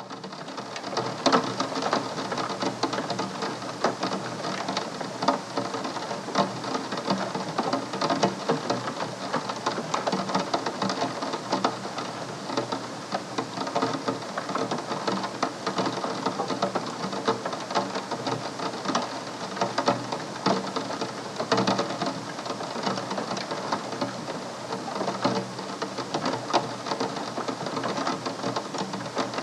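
Raindrops pattering on a glass window pane: a dense, continuous spatter of small taps that starts about a second in and holds steady.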